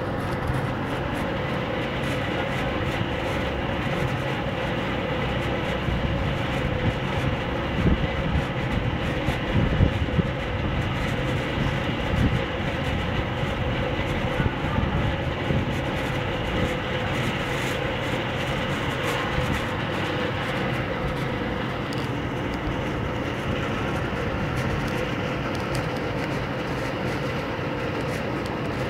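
A steady drone of background noise with a constant hum running through it, and a few louder low rumbles about a third of the way in.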